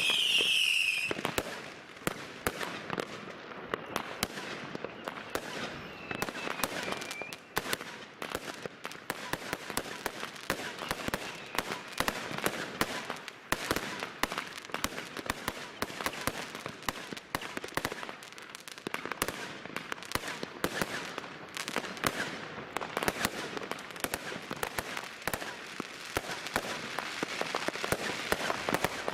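Consumer fireworks going off in a dense, unbroken stream of bangs and crackles, many shots a second overlapping. A high whistle fades out in the first second, and a fainter one follows several seconds later.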